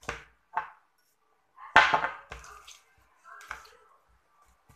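Homemade rice slime squished and pressed by hand in a plastic tub: a few short, wet handling sounds, the loudest about two seconds in.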